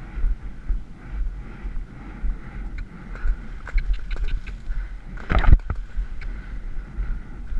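Wind buffeting a helmet camera over a cantering horse's hoofbeats, which turn to splashing once the horse is in the water. About five and a half seconds in comes a loud splash and thud as the horse jumps the fence out of the water.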